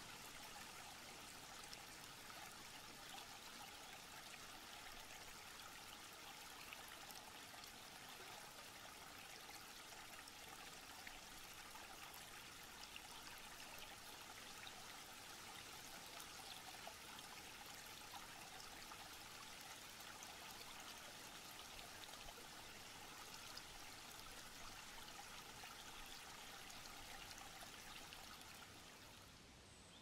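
Shallow rocky stream trickling and babbling over stones, a faint, steady rush of water that fades down near the end.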